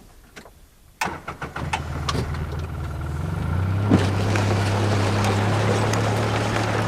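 Engine of a track-equipped Polaris Ranger 800 HD side-by-side comes in suddenly about a second in, with clicks and rattles, then runs with a steady hum that grows louder after about three seconds.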